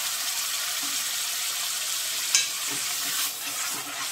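Tomato paste and onions sizzling in hot oil in a kadhai, a steady hiss. About two and a half seconds in there is one sharp clink, then a metal spatula starts stirring and scraping the pan.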